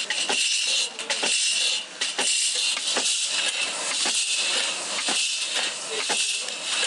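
Hand-lever bench shear cutting strips from old steel saw blades: sharp metal clacks and snaps at uneven intervals, roughly once a second, over a steady loud hiss.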